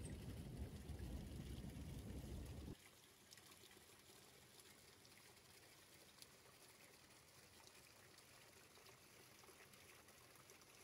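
Faint stream water trickling and splashing, stronger for the first few seconds, then dropping suddenly to a fainter steady hiss.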